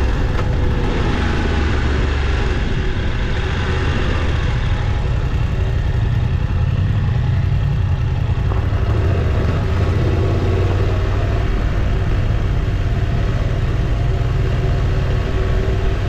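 Motorcycle engine running steadily while riding off-road, with a dense low rumble that holds at an even level throughout.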